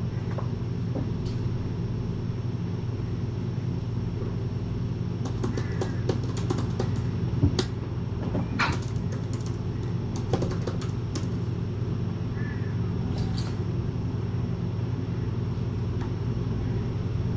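Light, quick clicking of typing on a laptop keyboard, in bursts from about five to eleven seconds in and once more near thirteen seconds, over a steady low hum.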